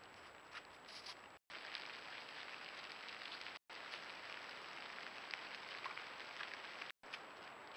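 Faint steady hiss from a trail camera's microphone, with scattered small ticks and patters and a thin constant high tone, cut by three brief dropouts of total silence where clips are spliced.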